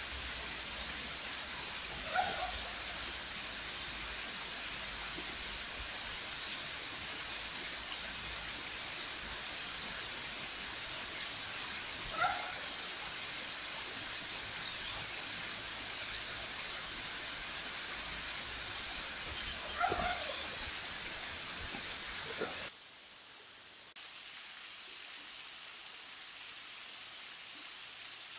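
Steady rush of water running over stones in a shallow stream, with a short animal call heard three times. Near the end the sound drops off briefly, then changes to water spilling over a low stone weir.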